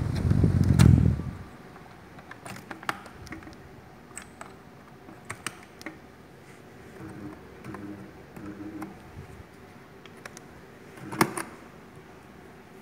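Air from a Maspion EF-309 12-inch desk fan blowing on the microphone for about the first second. After that the fan runs quietly with a faint steady hum, with scattered small clicks and knocks, the loudest near the end.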